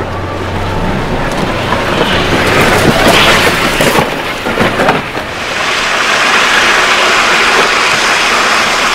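Wooden runners of a wicker toboggan sliding fast down an asphalt street: a steady rushing, scraping noise that swells about three seconds in and again over the last few seconds.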